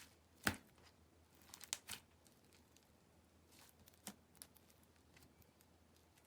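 Clear slime handled by hand, giving a few sharp sticky clicks and pops: the loudest about half a second in, a cluster near two seconds and one around four seconds, quiet in between.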